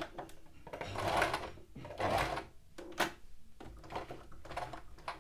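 Singer Tradition domestic sewing machine stitching in a few short bursts, with sharp clicks between them.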